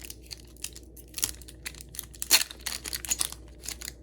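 Foil booster pack wrapper crinkling and trading cards being handled, in irregular rustles with one sharper crackle a little past halfway.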